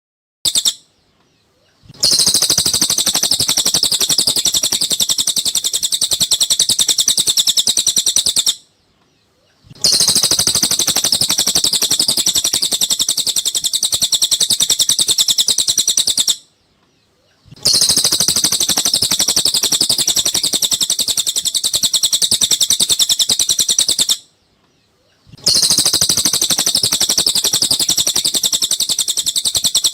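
Cililin bird song: rapid, dense, high-pitched chattering trills repeated in bouts of about six to seven seconds, with short silent pauses between them. It is a masteran recording played to train caged songbirds.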